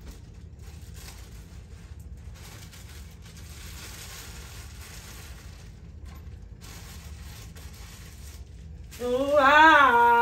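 Rustling of plastic parts bags and paper as hardware is sorted, then about nine seconds in a woman suddenly starts singing loudly, holding and bending long notes.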